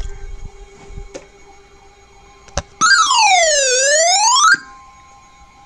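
An electronic alert tone sounds loudly for just under two seconds, its pitch swooping down and back up in one smooth dip, after a quiet stretch with a couple of faint clicks.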